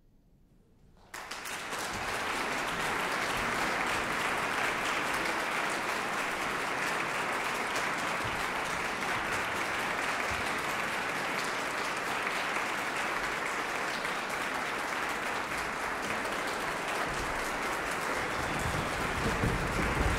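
About a second of near silence, then audience applause breaks out suddenly and continues steadily.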